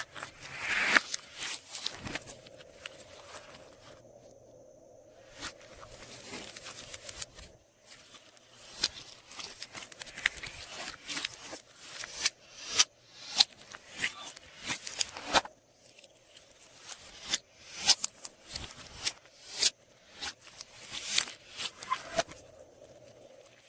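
Glossy slime being squished and stretched by hand, giving irregular sticky clicks and pops.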